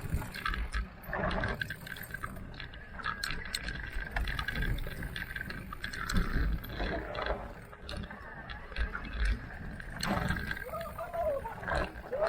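E-mountain bike ridden over a rough dirt trail: rumbling tyre noise with frequent knocks and rattles from the bike over bumps, under a faint steady whine. A brief wavering pitched squeal comes near the end.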